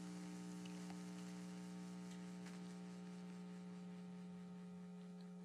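Faint, steady electrical hum in the recording, with no speech.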